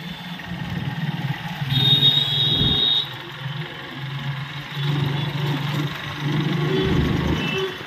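Motorcycle engine running steadily while ridden through road traffic, its low hum swelling and easing. About two seconds in, a high-pitched beep sounds for just over a second.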